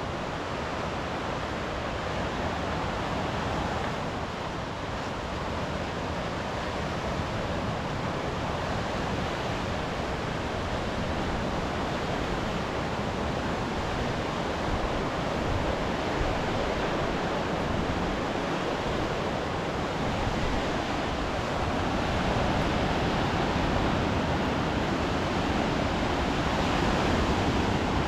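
Steady wash of sea surf, mixed with wind, swelling slightly and a little louder toward the end.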